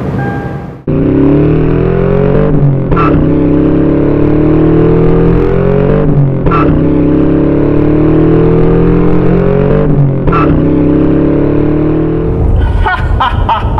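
Toyota 4Runner's 4.0-litre V6 accelerating hard through the gears of its automatic transmission. The engine note climbs and then falls back at each of three upshifts.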